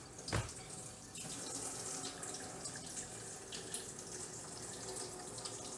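Kitchen faucet running steadily, its water splashing onto a silicone ice-shot tray in a stainless steel sink to loosen the frozen ice shots. A single sharp knock about half a second in.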